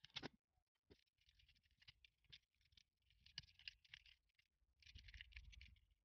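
Faint scratching and clicking of small hand tools against a 3D-printed plastic part as support material is picked off, with a couple of sharp clicks at the start and longer bouts of scraping in the middle and near the end.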